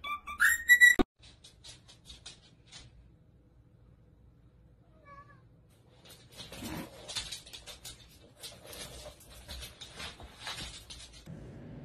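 A loud, short, rising high-pitched animal call that cuts off abruptly about a second in. After a quiet stretch comes several seconds of rustling and clattering from the plastic strips of a spiky ring toy as a cat tangles in it on a wooden floor.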